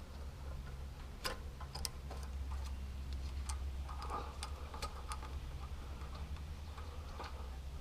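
Scattered light clicks and ticks of small metal parts being handled while a carburetor and its gasket are fitted and a mounting nut is started on its thread, over a steady low hum.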